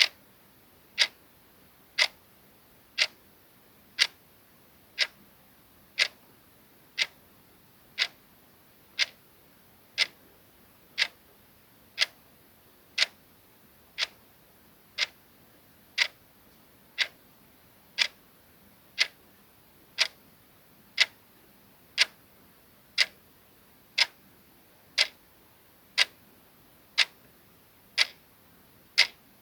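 A clock ticking steadily, one sharp tick each second, counting down a timer.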